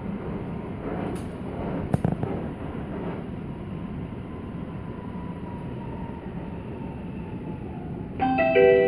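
Bombardier C20 metro train running along the track, a steady rumble heard from inside the car, with two sharp knocks about one and two seconds in. Near the end a pitched chime of stepping notes sounds on the onboard speakers, signalling the next-stop announcement.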